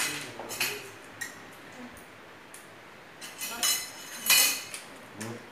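Spoons and serving utensils clinking and scraping against plates and bowls as food is served, a scatter of sharp clinks with the loudest clatter about three and a half to four and a half seconds in.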